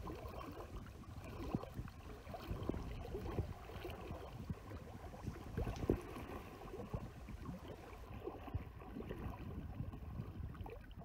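Shallow stream running over pebbles, with small irregular splashes and knocks throughout.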